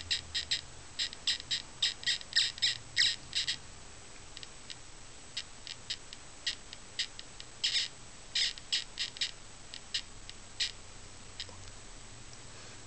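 Gauss Master EMF meter's audio signal giving short, high chirps in uneven bursts, set off by the field of an LED flashlight switched on and off just above it. The chirps come thick and fast for the first three or four seconds, then more sparsely, and stop about ten and a half seconds in.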